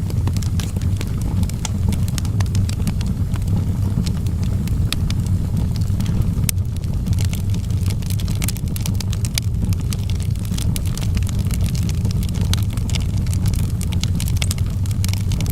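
Wood fire burning in a fireplace, crackling and popping with many sharp snaps over a steady low roar.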